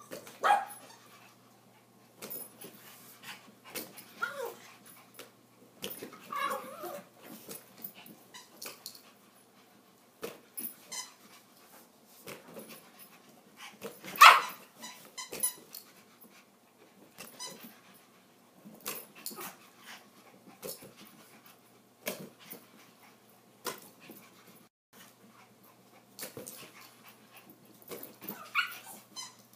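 Small dogs, Yorkshire terriers, playing rough: scattered excited barks, yips and growls among scuffling and taps, the loudest bark about fourteen seconds in.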